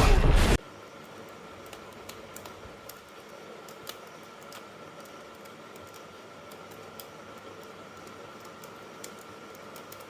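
A loud passage cuts off suddenly about half a second in, leaving a low hiss with a faint steady high hum and scattered small clicks and ticks.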